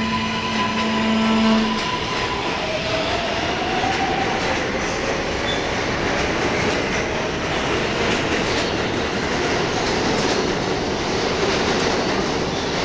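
A subway train running through the station, a steady dense rumble of wheels on rails. Held musical notes die away about two seconds in.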